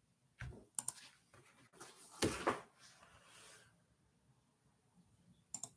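Faint clicks and rustles of movement and handling close to a computer's microphone, with a louder brief rustle about two seconds in and a sharp click near the end.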